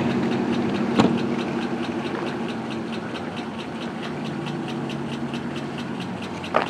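Pickup truck engine running steadily, easing off a little, with a fast even ticking of about five or six a second over it. A single sharp knock about a second in, and another short sharp sound near the end.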